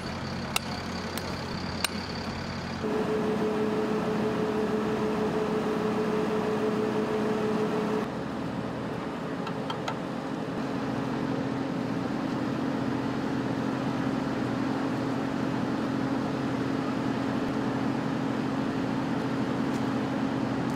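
Three hammer blows on a tent stake in the first two seconds. Then a steady engine hum from idling vehicles or generators, its pitch shifting about three and eight seconds in.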